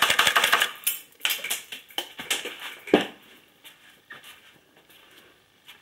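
Homemade compressed-air airsoft machine gun firing 6 mm BBs at 12 bar: a fast metallic rattle of shots that breaks into shorter, uneven bursts and stops about three seconds in, with one louder knock near the stop.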